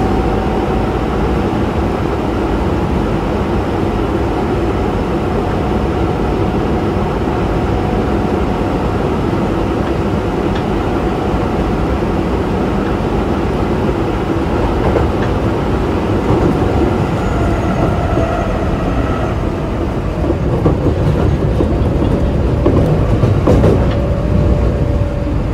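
Osaka Metro 24 series subway train with Hitachi IGBT inverter drive running, heard from inside the car: a steady rumble of wheels on rail with faint motor tones. In the last few seconds a faint whine slowly falls in pitch, and a few short clicks are heard.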